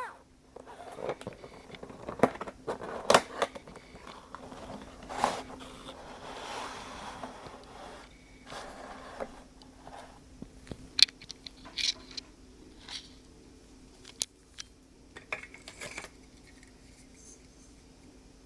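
Hard plastic toy-train parts being handled: irregular sharp clicks and knocks, with a longer scrape about six to eight seconds in, and fewer, quieter clicks near the end.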